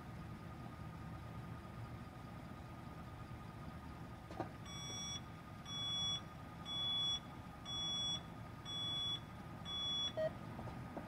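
Reversing alarm on a hi-rail pickup truck sounding six beeps, about one a second, over a low engine idle, with a single click just before the beeps start.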